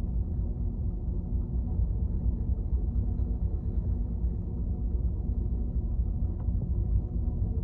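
Lifeboat's diesel engine running, a steady low rumble.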